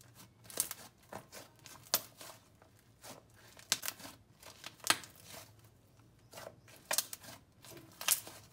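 Thick, clicky slime being squeezed and pressed by hand, making irregular sharp clicks and small pops.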